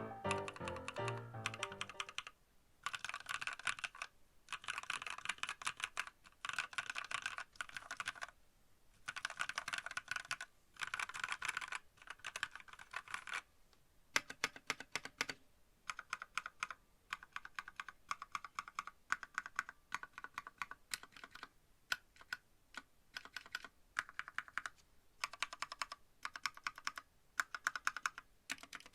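Keystrokes on a WENRUI WR63 mechanical keyboard with lubed red linear switches and XDA-profile keycaps. The keys are first typed in quick runs of one to two seconds with short pauses, then pressed more sparsely one at a time from about halfway. Background music fades out in the first two seconds.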